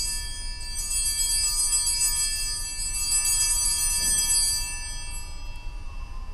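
Altar bells (a cluster of small hand bells) shaken in repeated peals, freshly struck about a second in and again about three seconds in, then ringing away to nothing. They mark the elevation of the consecrated host.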